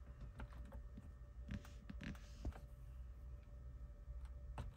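Button clicks on a Toyota RAV4's infotainment head unit, a handful of short scattered clicks as a gloved finger presses its hardware buttons, over a faint low steady hum.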